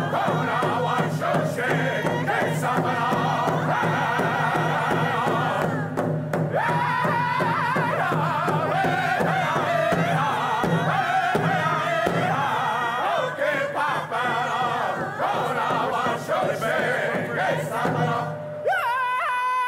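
A group of Native American singers chanting together in a powwow-style song, accompanied by frame hand drums, over a steady low held note. Near the end the singing briefly drops away, then comes back with a new phrase.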